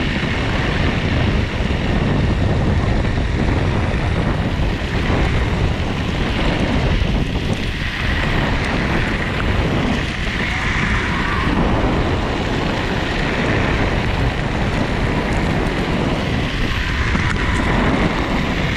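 MetroboardX electric skateboard's air-filled tyres rolling steadily over a gravel trail, a continuous rumble, with wind buffeting the microphone.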